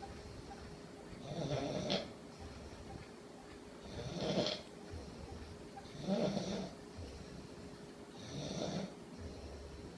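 A sleeping person snoring loudly and rhythmically, four snores about two seconds apart, with quieter breathing between them.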